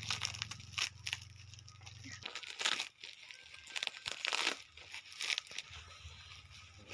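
Plastic wrapping crinkling and rustling as it is handled, in irregular bursts of varying length. A low hum stops about two seconds in.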